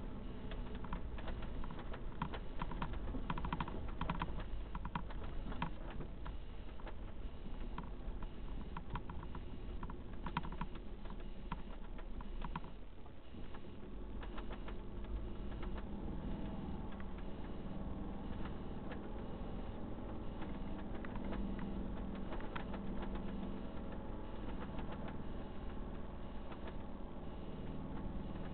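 Vehicle cabin noise from the inside as it drives over rough mine ground: a steady low engine and road rumble. Through the first half there are many quick clicks and rattles, and a steadier engine hum comes through in the second half.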